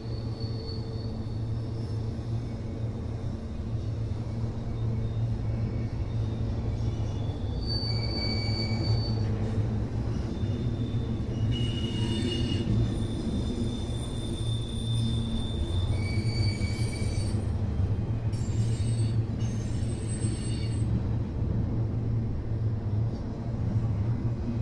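Double-stack container freight train rolling past: a steady low rumble of the wheels on the rails, with several high-pitched metallic squeals of a second or two each in the middle stretch.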